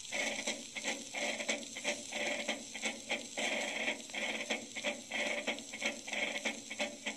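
Early acoustic recording of a brass band with drums, played from a 1912 Victor record: a thin, narrow-band sound with no deep bass, over a steady hiss of record surface noise. The band keeps a regular beat of several accents a second.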